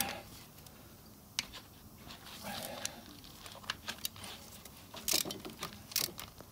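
Scattered light metallic clicks and taps of a ratchet and socket being handled at an engine's timing-belt tensioner bolt. The sharpest click is at the very start, with a few more about one and a half, four, five and six seconds in.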